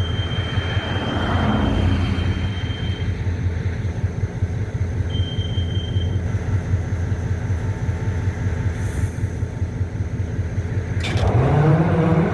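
EMD MP15 switcher locomotive's 12-cylinder two-stroke diesel running with a deep, steady rumble. About eleven seconds in a sharp knock sounds, and the engine's pitch then rises as it throttles up.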